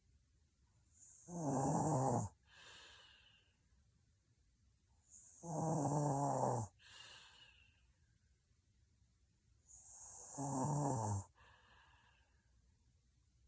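A young woman snoring heavily in her sleep: three loud snores about four seconds apart, each dropping in pitch, and each followed by a softer breath.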